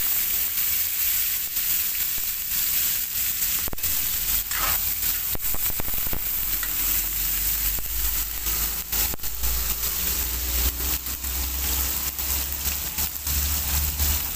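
Sliced onion and garlic sizzling in hot oil in a steel wok, with a steady hiss full of small crackles, while a metal spatula stirs and scrapes them against the pan.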